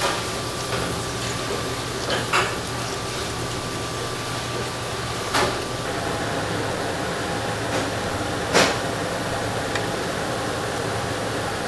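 Steady rushing noise of a large stockpot of spiced broth at the boil on its burner, with a low hum beneath. A few sharp knocks cut through it, the loudest about three-quarters of the way in.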